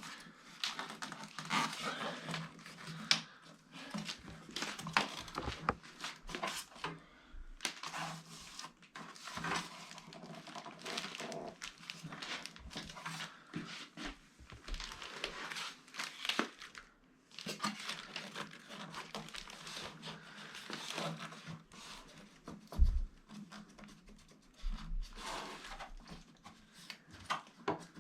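Packing material being pulled out and handled: foam and plastic wrapping rustling, crinkling and tearing in irregular bursts, with scattered knocks of parts and boxes being moved and one louder knock about three quarters of the way through.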